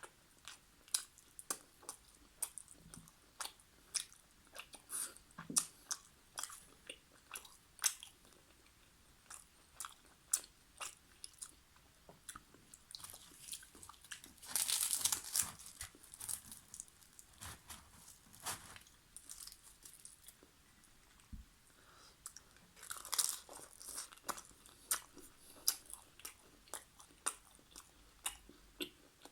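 Close-miked eating of chicken karahi and naan: wet chewing with many sharp mouth clicks, and two longer crunchy stretches, one about halfway and one about three quarters of the way through.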